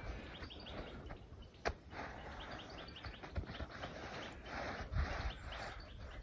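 Small birds chirping in quick repeated notes, with a single sharp click a little under two seconds in.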